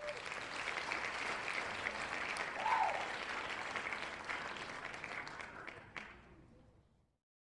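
Recorded applause sound effect played by an online prize-wheel spinner when a winner is picked: steady clapping that fades away over the last two seconds and stops.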